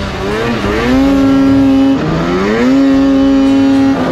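2019 Polaris RMK 600 snowmobile's two-stroke twin engine revving under throttle while being ridden. The engine note climbs and holds, drops off and climbs again about two seconds in, then drops again near the end.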